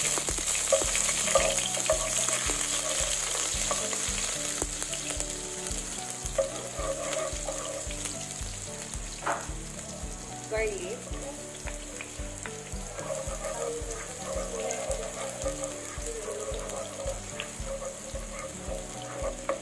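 Chopped onion sizzling as it fries in hot cooking oil in a pot, loudest at first and slowly easing off. Chopped garlic goes in partway through, and a spatula stirs the pan near the end.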